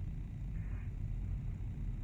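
Steady low rumble of road and engine noise inside a car's cabin while driving on the interstate.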